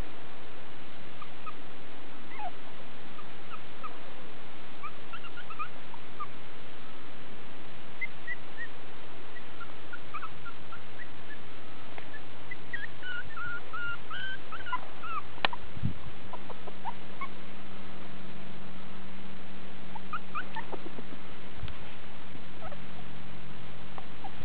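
Parson Russell Terrier puppies, about three and a half weeks old, whimpering and squeaking in short high-pitched peeps scattered throughout, densest around the middle.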